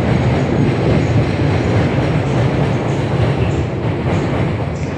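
Loud, steady low rumble of outdoor city noise, easing off a little toward the end.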